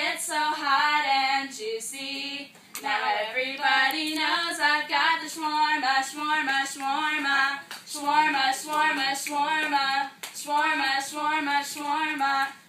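Young women singing a song unaccompanied, holding notes between phrases, with short breaks about two seconds in and again near eight seconds.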